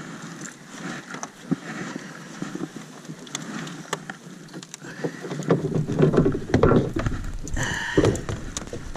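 Rustling and knocking from a fish and fishing gear being handled in a small boat. The handling gets louder and heavier about halfway through, and a short pitched squeak or call comes just before the end.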